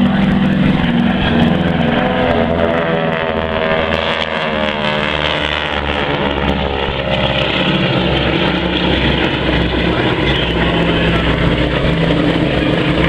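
Radial engines of a pair of North American T-6 Texan trainers, nine-cylinder Pratt & Whitney R-1340s, running steadily as the planes fly by. The tone sweeps from about four to seven seconds in as they pass.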